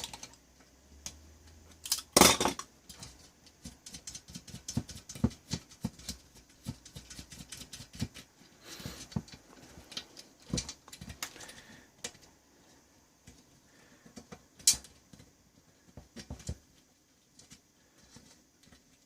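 Small metal parts and hardware clicking, tapping and clattering at irregular moments as a piece of test equipment is taken apart by hand, with a louder knock about two seconds in and another near fifteen seconds.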